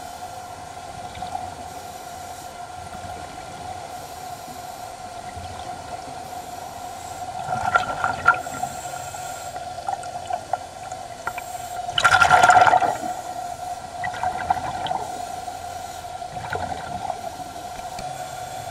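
Underwater sound: a steady high hum runs throughout, broken by gurgling bursts of a diver's exhaled air bubbles, a few small ones and one loud burst about two-thirds of the way through.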